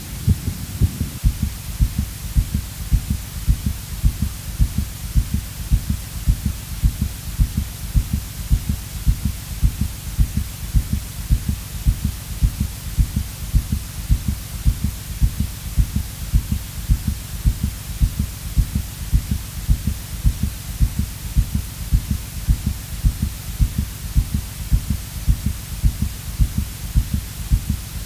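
A low, steady thumping pulse like a heartbeat, nearly two beats a second, over a faint hum; a denser low rumble gives way to the pulse about a second in.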